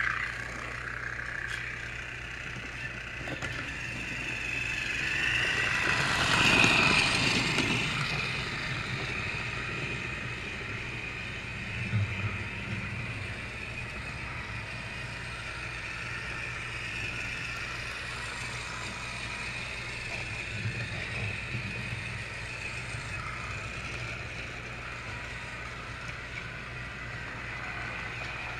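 Battery-powered Trackmaster toy train's small electric motor whining steadily as it runs along plastic track, swelling louder about seven seconds in.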